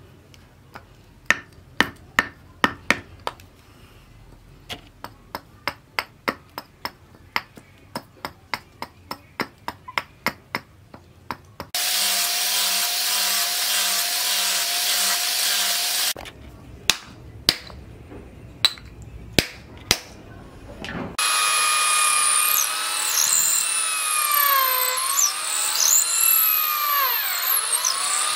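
Sharp knocks, two or three a second, of a knife blade chopping into a wooden handle blank. About twelve seconds in, an angle grinder runs steadily against the wood for about four seconds, then the knocks return. From about 21 seconds in, an electric drill bores into the end of the wooden handle, its whine rising and falling as the load changes.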